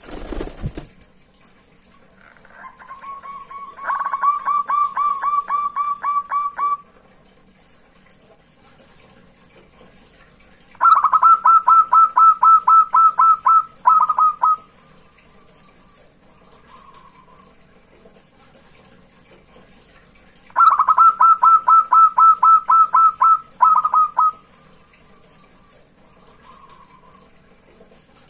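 Zebra dove (perkutut) singing: three phrases of rapid staccato cooing notes about eight to ten seconds apart, the later two each finishing with a few separate notes and a soft trailing coo. A brief thump at the very start.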